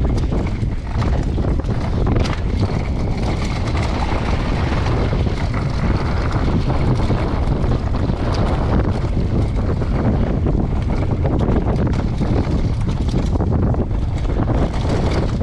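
Wind buffeting a GoPro microphone during a fast mountain-bike downhill descent, with a steady low rumble of tyres over dirt and frequent small clicks and rattles from the bike over rough ground.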